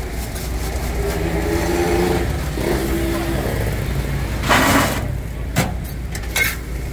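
A motor vehicle's engine running by in the street over a steady low traffic hum. Its note drops a little about two and a half seconds in, and a short noisy rush comes at about four and a half seconds.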